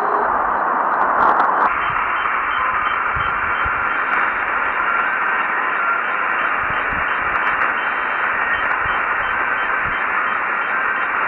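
Shortwave radio static and hiss from a Degen 1103 portable receiver tuned to 7750 kHz, with no clear speech from the station coming through the noise. A second or two in, the hiss turns brighter and thinner.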